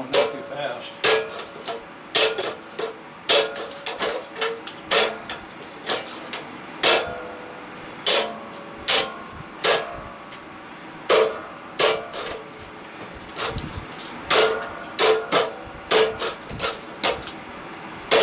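Hammer blows on the perforated metal end plate of an air-conditioner coil clamped in a vise, roughly one or two strikes a second at uneven intervals, each with a short metallic ring. This is the plate being knocked loose from the coil's copper tubes for scrap.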